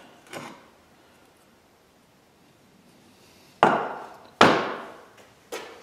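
Cast brake caliper halves knocked and set down on a wooden board: one light knock near the start, then three sharp knocks about a second apart in the second half.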